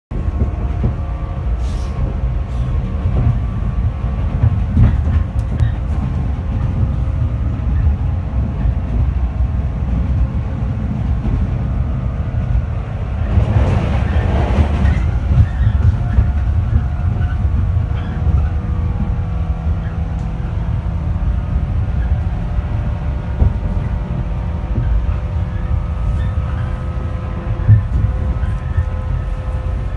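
Electric local train running, heard from inside the passenger car as a steady low rumble, with a louder rushing swell lasting about two seconds near the middle.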